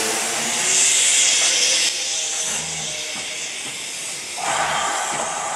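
GWR 42xx-class 2-8-0 tank engine No. 4277 'Hercules' hissing steam as it pulls away with its train. The hiss is loudest in the first two seconds, and another rush of steam comes about four and a half seconds in.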